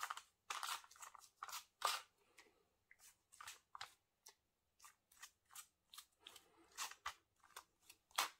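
A pastry brush swishing egg wash onto raw pasties on a paper-lined tray: a run of faint, short, irregular brush strokes.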